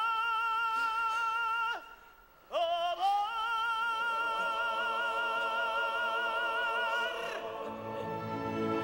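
A classically trained voice in a zarzuela duet holds a high note with wide vibrato and breaks off with a downward slide after about two seconds. After a brief pause it slides up into a second long held note of about four and a half seconds. Near the end the orchestra swells in underneath.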